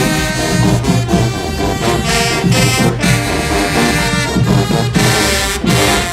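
HBCU marching band playing a brass-led tune on the march, trombones and trumpets over a steady drum beat of about two hits a second.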